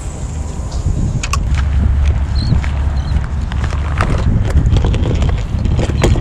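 Wind buffeting the camera microphone: a loud, low, rumbling noise, with scattered clicks and knocks from handling the fishing rod and a plastic tackle box.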